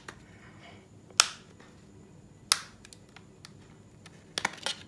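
Plastic snap-on back cover of a Nokia 2.2 being prised off the phone: sharp clicks of its clips letting go, a loud one about a second in, another midway, and a quick cluster of small clicks near the end.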